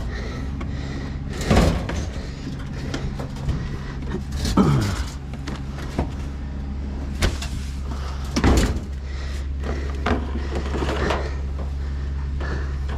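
Several heavy knocks and clunks as a bulky scrap item is lifted and shifted, one with a short falling scrape or squeal about four and a half seconds in, over a vehicle engine idling steadily.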